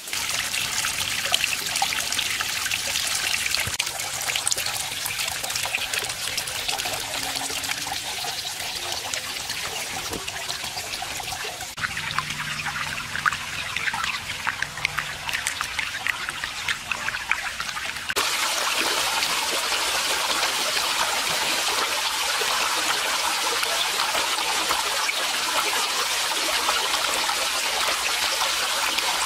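Water spilling and trickling over the stone ledges of a small built waterfall into a pond, a steady splashing rush. Its sound shifts abruptly a couple of times, growing fuller and more even in the last part.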